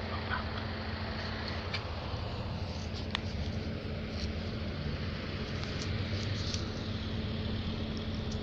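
A steady low mechanical hum with a constant background hiss, and a few faint clicks.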